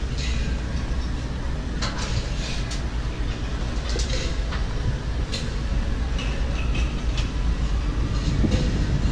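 Small wheels rolling over stone-tile paving, a steady low rumble with scattered clicks and knocks.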